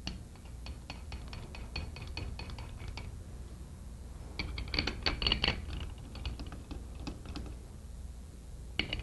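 Steel head bolts being fitted by hand into the head flange of a Corken Z-model sliding-vane pump: a run of small metal clicks and clinks as the bolts go in and are threaded, busiest about halfway through.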